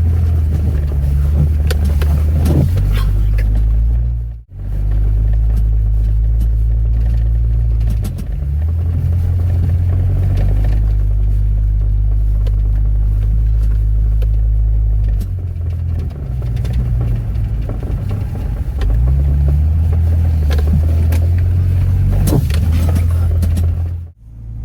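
Off-road vehicle's engine running under load, heard from inside the cab: a loud low drone that shifts pitch several times as the throttle changes. The sound cuts out briefly about four seconds in and again near the end.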